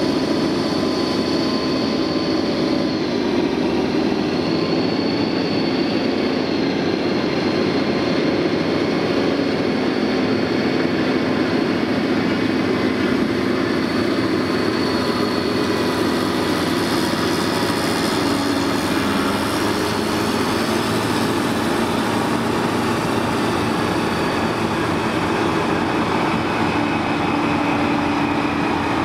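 Diesel engines of Caterpillar 637 wheel tractor scrapers running steadily, a continuous heavy engine note with a high whine over it.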